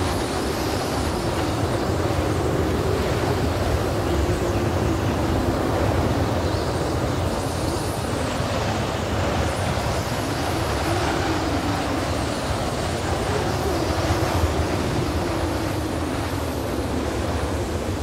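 A steady rushing noise with a low hum that slowly wavers in pitch.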